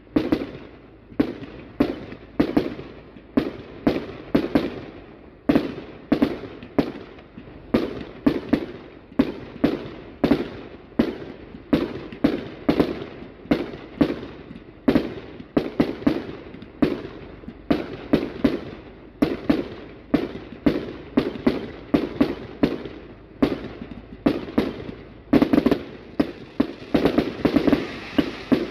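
Aerial fireworks launching and bursting in quick succession, a steady run of sharp bangs about two or three a second that crowd closer together near the end.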